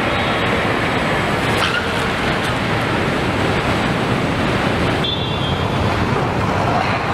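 New Honda CR-Vs driving slowly across a factory floor, engine and tyre noise over the steady din of the plant. The sound changes abruptly about five seconds in.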